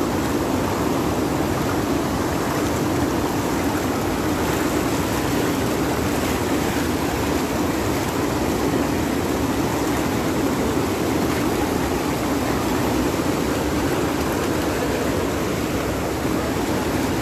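Steady rushing of water churned up while riding a motorcycle through a flooded street, mixed with the bike's running and wind noise.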